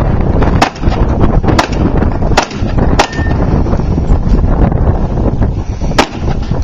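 Five sharp gunshots at irregular intervals, the last a few seconds after the others, over heavy wind buffeting the microphone.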